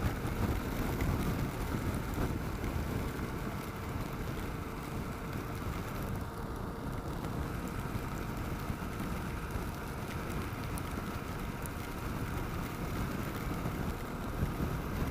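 Steady riding noise of a 2009 Kawasaki KLR 650 motorcycle in the rain: wind and road rush with the single-cylinder engine running underneath and rain hitting.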